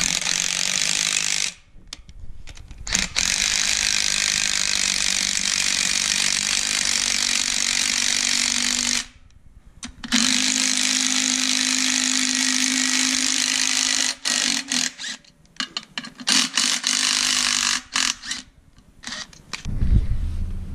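Cordless power driver running two bolts into the threaded puller holes of a Toyota Land Cruiser FJ60 rear brake drum, jacking the drum off the hub. It runs in long spells of several seconds with brief stops, then in short stop-start bursts, and there is a low thump near the end.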